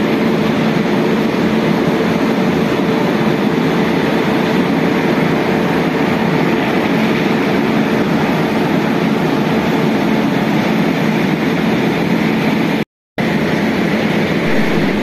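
Steady train noise: a droning hum with a rushing din under it, cutting out for a moment near the end.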